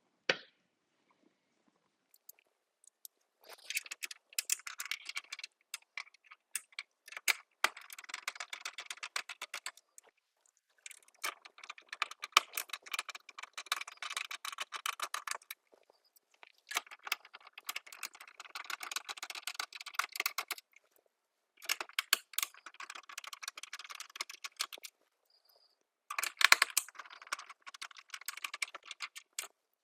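Small clicking and rattling of hand tools, screws and plastic parts during the teardown of a plastic Nerf blaster, coming in six bursts of a few seconds each with short pauses between.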